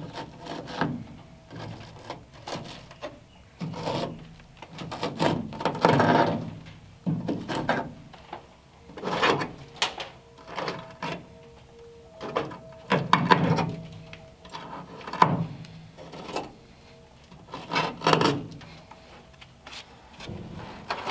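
A gloved hand scraping and picking at the rusted-through inner A-pillar and roof-rail seam of a 1939 Ford steel body, with crunchy rust scale crackling and rubbing in irregular bursts.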